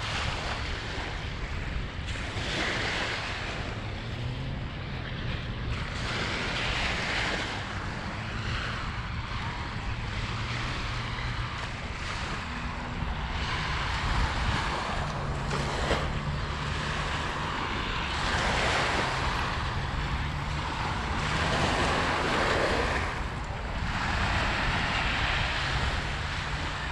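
Lake Michigan waves washing onto a sandy beach, the surf swelling and falling every few seconds, with wind buffeting the microphone.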